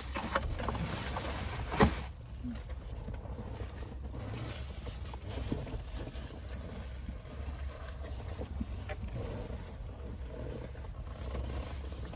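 Rustling, as of a paper towel or food wrapping being handled, over a low steady rumble, with one sharp knock about two seconds in; after that, quieter scattered handling sounds.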